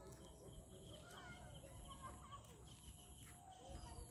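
Faint evening field ambience: scattered short bird calls over a steady high insect trill.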